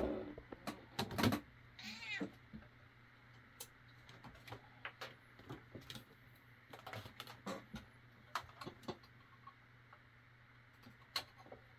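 Scattered clicks and knocks of coax cable and connectors being handled while an antenna cable is swapped on a switch, the loudest in the first second and a half. A domestic cat meows once, rising and falling, about two seconds in.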